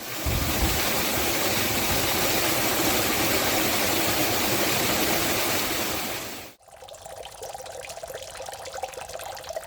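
Mountain stream water rushing steadily. About two-thirds of the way through it cuts off abruptly to a much quieter trickle of water.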